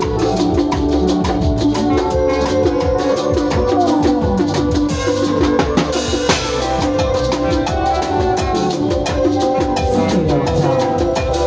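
A live electronic keyboard and acoustic drum kit playing together: the keyboard sounds held chords and melody lines over a steady beat of drum hits.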